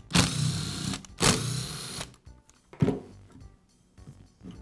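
Cordless drill-driver running in two short bursts of about a second each, backing screws out of a reciprocating saw's metal gearbox cover. A sharp knock about three seconds in, then light clicks of parts being handled.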